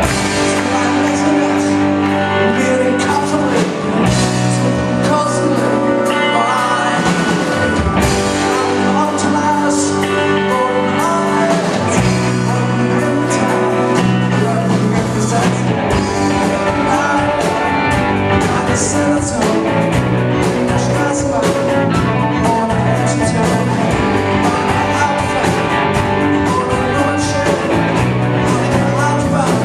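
Live rock band playing at full volume: electric and acoustic guitars, bass, drum kit and keyboard.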